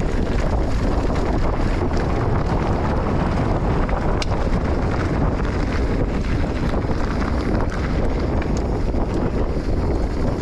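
Enduro motorcycle riding along a trail, its engine noise mixed with steady wind buffeting on the microphone.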